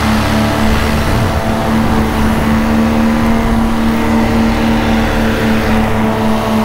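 Paramotor engine and propeller running at a steady throttle, a loud, even drone close to the microphone.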